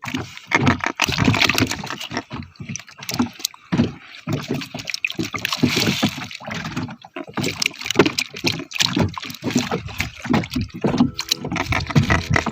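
Water sloshing and slapping against a small boat's hull, with irregular knocks. Music comes in near the end.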